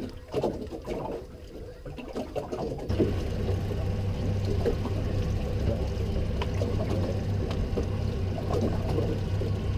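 Water splashing and trickling, with a steady low hum that starts suddenly about three seconds in and keeps going.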